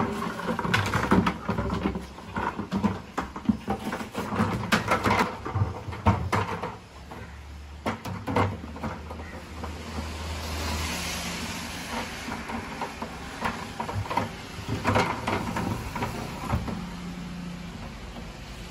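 A plastic bucket being knocked over, dragged and scraped across a tiled floor by a German Shepherd, in bursts of hollow clattering that thin out after about seven seconds.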